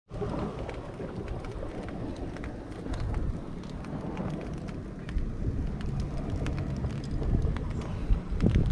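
A wrapped mullet fillet in butter sizzling on white-hot barbecue charcoal: a steady hiss with many small crackles and pops, over a low rumble.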